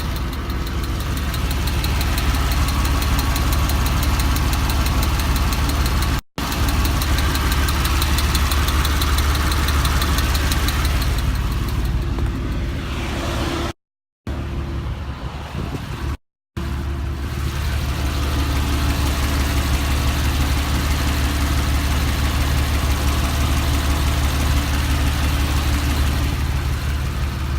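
An engine idling steadily with a fast, even ticking over it, the ticking whose cause the owner is asking others to diagnose. The sound cuts out briefly three times.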